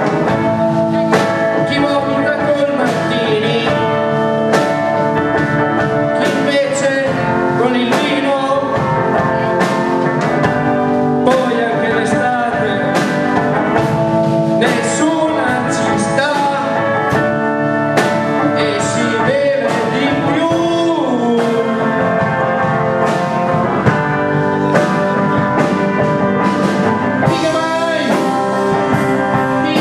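Live rock band playing: electric guitar and drum kit, with a man singing into a microphone.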